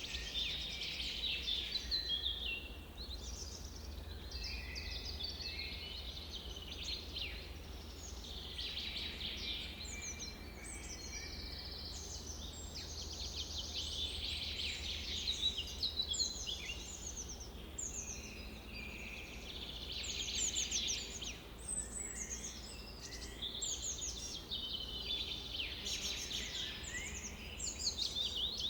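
Many birds singing at once: a dense chorus of overlapping chirps and trills, over a steady low background rumble.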